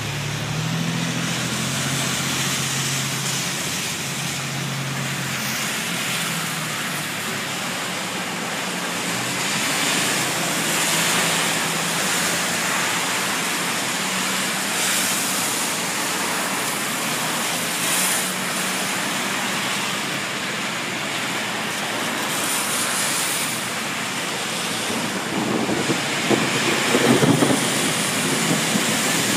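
Fast-flowing floodwater rushing across a street: a steady, even rushing noise, louder and more uneven near the end, with a faint low hum in the first few seconds.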